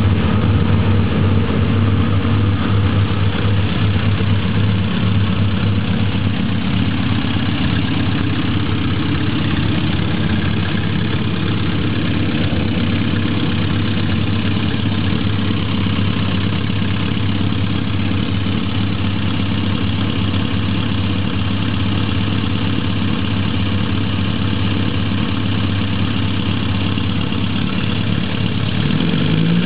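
Chevrolet Corsa 1.6 four-cylinder engine, fitted with an Antelo 11.37 camshaft and a VPR cylinder head, idling just after start-up. It is a little louder over the first several seconds, then settles to a steady idle, and it begins to rev as the throttle is opened near the end.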